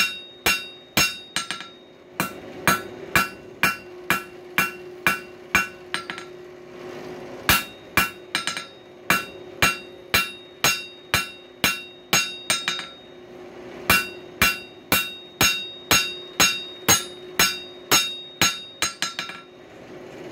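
Hammer blows on hot coil-spring steel over an anvil, about three strikes a second, each with a bright metallic ring. The strikes come in three runs with two short breaks, while the bar is forged into the screwdriver.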